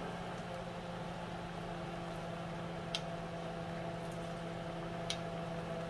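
A steady low kitchen hum with a faint hiss, broken by two light clicks of a metal spoon against the clay pot, about three and five seconds in.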